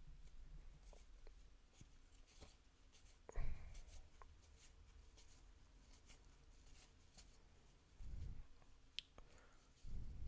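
Faint rustling and small clicks of baseball cards being handled and flipped through. There is a sharper thump about three and a half seconds in, and soft low thuds near the end.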